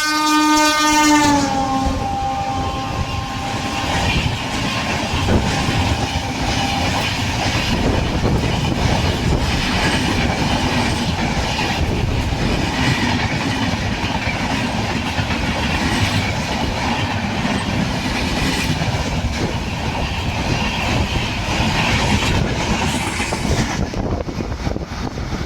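An express train passing at speed: its horn sounds and drops in pitch as the locomotive goes by, then the long rush and clatter of the coaches' wheels on the rails.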